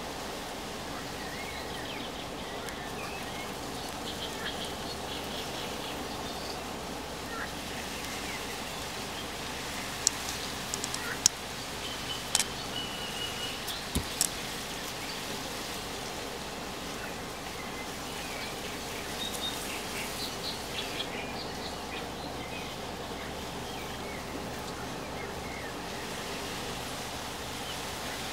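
Outdoor ambience: a steady hiss with scattered bird chirps, and a few sharp clicks about halfway through.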